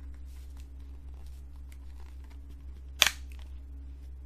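A 4K UHD disc snapping off the plastic hub of a mediabook: one sharp click about three seconds in, with faint handling ticks of the packaging over a steady low hum.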